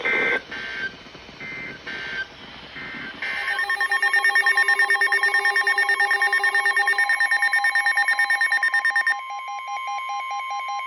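Emergency Alert System tones: a string of short, chirping bursts of digital header data over the first three seconds, then a loud, rapidly pulsing attention tone that signals a new alert. About nine seconds in the tone drops in level and carries on more quietly.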